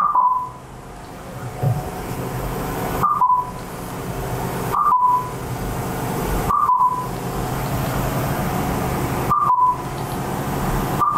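Short two-note electronic beeps, a higher note dropping to a slightly lower one, from an interactive whiteboard's calibration as a fingertip touches each target point. The beeps sound as each point registers, about six of them at uneven gaps of two to three seconds, over a steady background hum.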